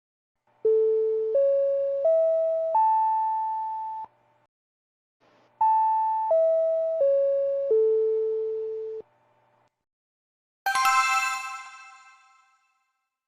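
Four-note chime effect: four struck, decaying tones rising up an arpeggio, a pause of about a second and a half, then the same four tones falling back down, like the Japanese public-address announcement chime that opens and closes an announcement. About ten and a half seconds in, a short bright, ringing sound effect with many overtones sounds and fades away.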